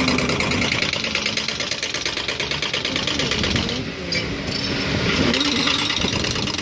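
Engine of construction machinery running steadily, with a fast, even pulse.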